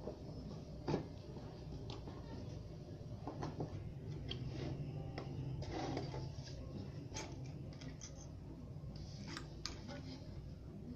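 Irregular small metallic clicks and light knocks of a screwdriver and an aluminium heatsink being handled while a defective stereo amplifier IC is replaced, over a steady low hum.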